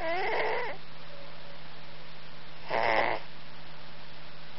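Norwegian Forest cat snoring: two snoring breaths, one at the start and another about three seconds in, over a steady low hum.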